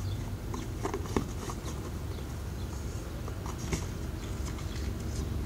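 Cardboard box knocking and rustling as it is jerked about on a rope, with a few sharp knocks about a second in and again near four seconds, over a steady low outdoor rumble.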